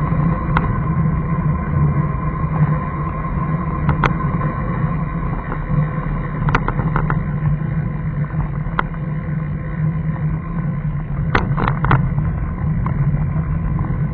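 Steady low drone of a road vehicle under way, picked up through a vehicle-mounted camera, with a faint constant whine above it. A few sharp clicks, a small cluster of them near the end, rattle through the drone.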